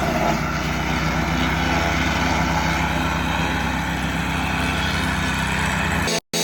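A small engine running steadily at constant speed, breaking off abruptly about six seconds in.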